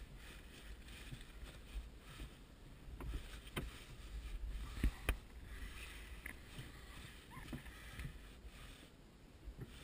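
Low, faint rumble inside a glider's closed cockpit, with a few sharp clicks and knocks, the loudest about five seconds in.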